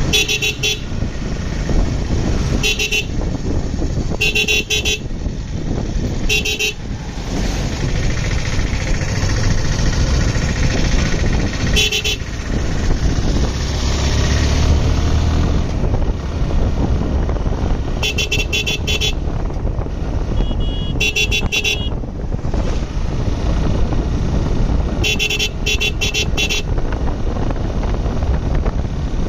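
Motorcycle horn sounding in quick strings of short beeps, about eight times, over the steady rush of wind and engine noise of a moving motorcycle.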